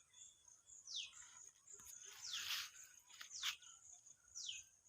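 A bird repeating a short call that falls sharply in pitch, about once a second, over a steady high insect drone.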